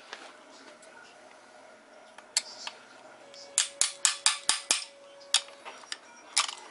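Hand ratchet, extension and steel sockets clicking and clinking while oil pan bolts are worked loose. A few single sharp metallic clicks, with a quick run of about seven clicks a little past the middle.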